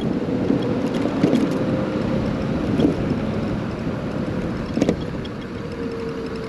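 Wind and road noise from riding a Huck Cycles Stinger electric moped, with a steady electric-motor whine and a few short knocks.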